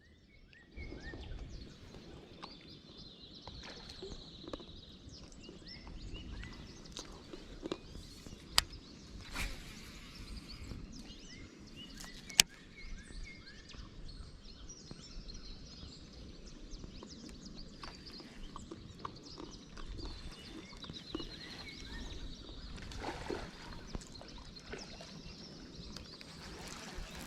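Outdoor riverside ambience: a steady low rumble of wind with birds chirping, including two short trills. Two sharp clicks stand out about a third and halfway in.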